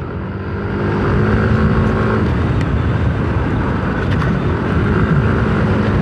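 Yamaha Aerox 155 scooter's single-cylinder engine running steadily under way, heard from the riding position under a heavy rush of wind and road noise. The engine's tone fades back about two seconds in and comes up again near the end.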